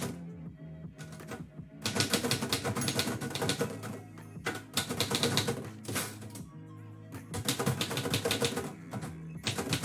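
Manual typewriter being typed on in quick bursts of keystrokes with short pauses between them, over lo-fi background music.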